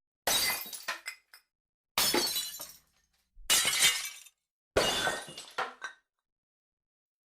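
Breaking-glass sound effects: four separate crashes of shattering glass, each a sharp break that trails off into a few scattered bits of falling pieces, with silence between them.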